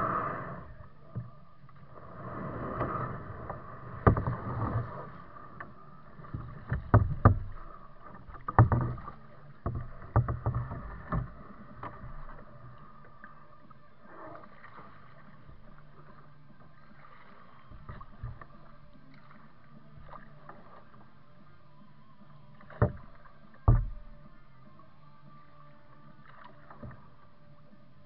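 Kayak paddling on slow, calm water: paddle blades swishing and splashing in the water, with a run of sharp knocks and splashes in the first half and two more sharp knocks near the end. In between, a quieter stretch of gentle water sounds as the boat glides.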